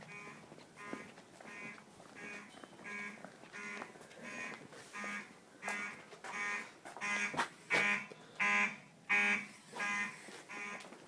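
School fire alarm horn sounding in a steady pulse, about three harsh, buzzy blasts every two seconds. The blasts grow louder toward the middle and then ease off again.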